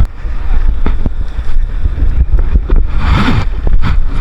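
Heavy wind buffeting the microphone: a loud, steady low rumble with a few scattered sharp clicks. About three seconds in there is a brief hissy burst.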